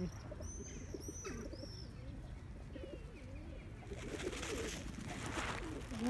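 Feral rock pigeons cooing, low wavering calls on and off. A small bird chirps a few times, high and arched, about half a second to a second and a half in, and a soft rushing noise comes in around four seconds.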